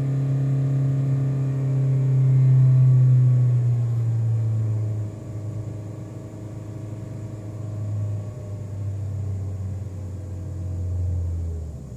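Toyota Ractis's 1NZ-FE 1.5-litre four-cylinder engine running, heard through the firewall. Its note eases slowly down in pitch, turns much quieter about five seconds in, holds a lower steady hum, and stops just before the end.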